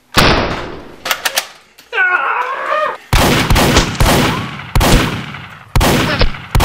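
Loud gunfire-like shots as a Nerf blaster is fired: one just after the start, then a run of shots about one a second, each with a long fading tail. A man gives a brief yell around two seconds in.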